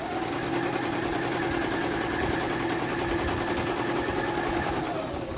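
Electric sewing machine running at a steady speed, its motor humming under the fast, even clatter of the needle stitching through cloth, stopping near the end.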